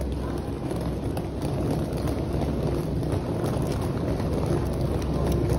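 Small wheels of a hard-shell suitcase rolling over a tiled floor while it is pulled at a walk: a steady low rumble with many faint quick clicks.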